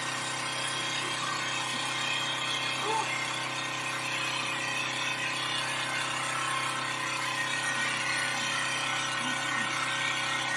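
Steady mechanical hum of running machinery, holding an even pitch and level with no rhythm or sudden changes.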